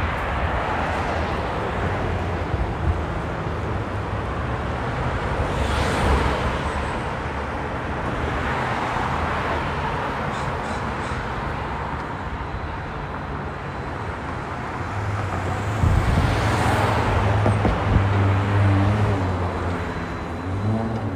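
City street traffic: cars passing by with steady tyre noise, two of them swelling louder as they go past. A deeper engine hum grows in the second half, and an engine can be heard speeding up near the end.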